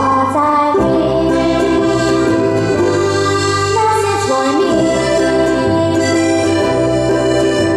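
Live acoustic band music: a woman singing over accordion, strummed ukuleles and a ukulele bass.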